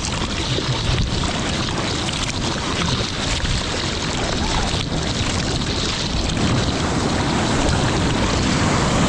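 Seawater splashing and rushing around a surfboard's nose close to the microphone as it is paddled through choppy surf and whitewater, heard as a steady, loud wash of noise.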